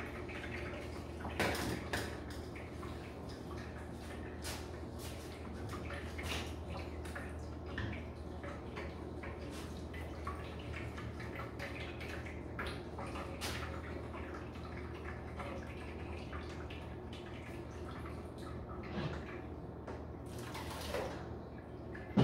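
Hot corn mash being strained through a fine mesh sieve into a bowl: liquid dripping and trickling, with a spoon scraping and tapping the sieve now and then, over a steady low hum.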